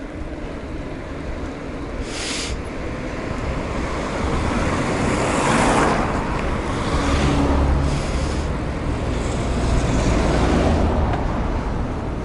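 Wind rushing over the microphone together with road traffic noise. The noise swells about halfway through, and a heavy low rumble comes in about seven seconds in.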